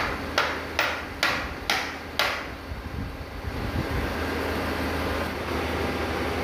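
Combination woodworking machine's motor running steadily, unloaded, with a low hum. In the first two seconds about six sharp knocks come at roughly two a second, then only the hum.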